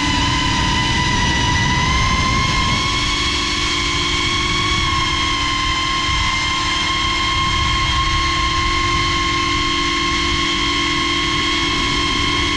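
FPV drone's electric motors and propellers whining at a steady pitch, heard from the drone's own onboard camera, over a low rushing noise. The pitch rises slightly a couple of seconds in, then holds.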